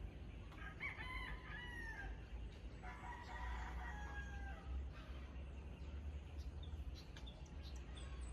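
Faint bird calls: a few short calls about a second in, then one longer held call about three seconds in, with quick high chirps near the start and end over a low steady rumble.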